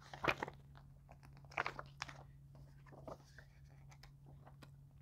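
Pages of a glossy paper booklet being flipped and handled: a few short rustles, the first just after the start, a cluster around a second and a half and one near three seconds, with small clicks between them over a low steady hum.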